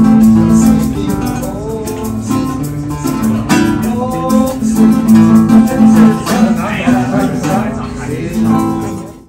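Acoustic guitar played live, plucked and strummed chords with a melody line. It fades out just before the end.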